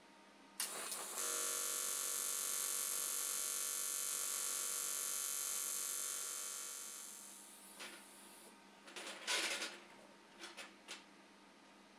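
AC TIG welding arc on aluminium: a steady electric buzz that starts about half a second in, holds for about six seconds, then fades out. It is followed by a few short clicks and knocks.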